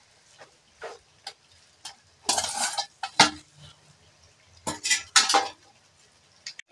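A steel bowl scraping and clinking against the rim of a metal kadai as fried potato pieces are tipped into spice paste, in scattered short clicks and two longer scraping bursts, one near the middle and one near the end.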